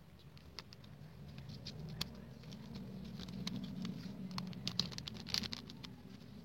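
Faint, scattered light clicks and soft rustling of hand packing: mask connectors and straps being handled and packed into clear OPP plastic bags, over a faint low hum.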